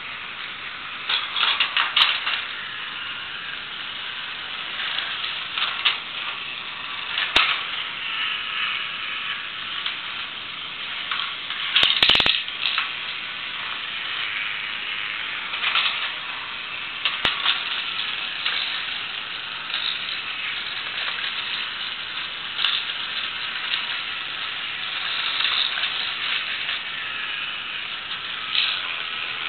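Battery-operated toy truck set running on one AA battery: its small motor and plastic gears whirr steadily as the trucks move along the plastic track. Occasional sharp clicks and clatters, the loudest about twelve seconds in.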